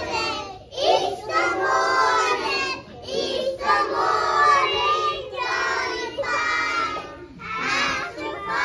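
A group of young children singing a song together in sung phrases, with short breaks for breath between them.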